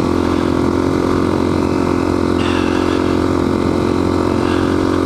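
Single-cylinder four-stroke engine of a 2013 Suzuki DR-Z400S running at a steady cruising speed on the move, with a steady low wind rumble on the microphone.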